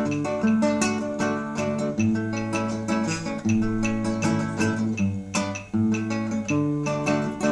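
Instrumental Cuban guitar music: acoustic guitars plucking quick runs of notes over steady low notes, with no singing.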